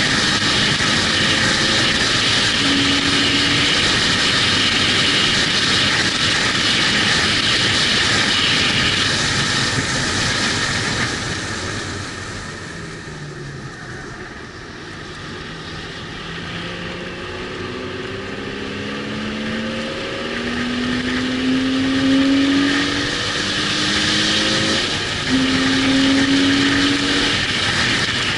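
Sports car on a race track, heard from on board. Loud steady wind and road noise at speed fades about halfway through as the car slows. The engine then climbs in pitch again and again as it accelerates up through the gears.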